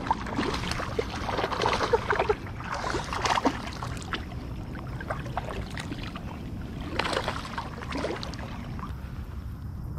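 Water splashing irregularly as a hooked largemouth bass thrashes at the surface while being reeled in, with the heaviest splashes in the first few seconds and another about seven seconds in.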